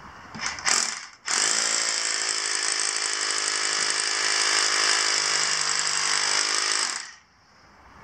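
Corded rotary hammer drill with a masonry bit boring into pavement: a couple of short bursts about half a second in, then running steadily under load for about six seconds before stopping suddenly near the end.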